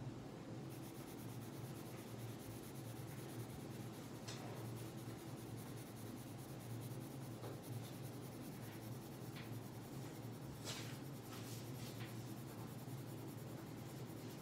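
Colored pencil shading on paper: soft, continuous scratching from the pencil lead, with a few sharper strokes about two-thirds of the way through, over a steady low hum.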